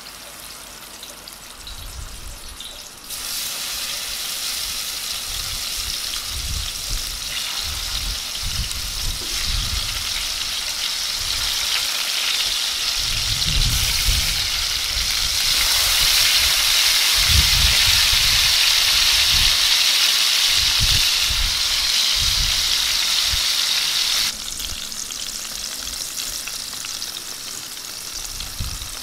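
Marinated chicken pieces frying in hot oil on a large tawa griddle over a log fire: a steady, dense sizzle that grows louder as more pieces go onto the pan, then drops suddenly about four seconds before the end.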